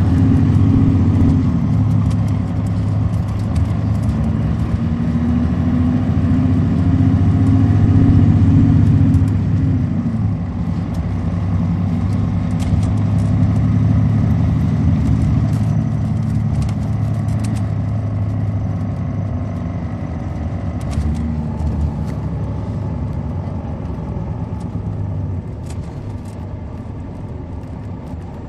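Caterpillar C13 ACERT diesel of a 2006 MCI D4500CL coach bus under way, heard from inside the passenger cabin, with scattered light rattles. About ten seconds in the engine eases off, and the sound fades gradually as the bus slows.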